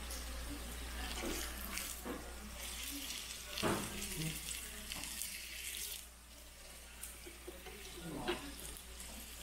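Slices of pork belly sizzling on a tabletop grill pan, a steady hiss that drops away about six seconds in. Two sharp clicks of metal tongs and scissors handling the meat come a few seconds in and again near the end.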